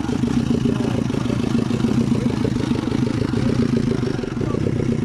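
A vehicle engine idling, a steady low rumble.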